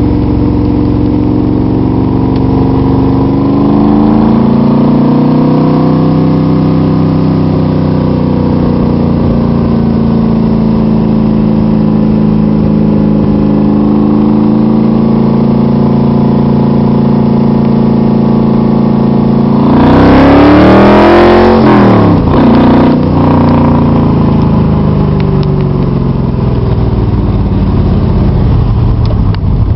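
Car engine running steadily, its pitch shifting a little, then revved once about two-thirds of the way in, climbing sharply and dropping back to a steady run.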